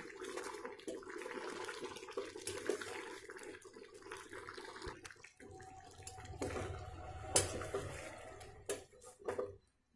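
Slotted steel spatula stirring a thick simmering tamarind curry in a stainless steel pan: a wet bubbling and stirring sound with a few sharp clinks and scrapes of metal on the pan.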